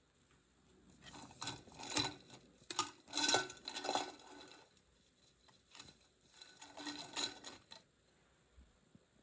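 Irregular light clattering and clinking of small hard objects being handled, in clusters over several seconds, some clinks briefly ringing.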